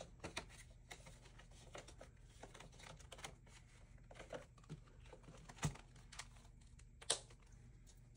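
Paper banknotes and a clear plastic binder with cash envelopes being handled: soft rustling and light clicks and taps, with two sharper clicks a little after halfway and about seven seconds in.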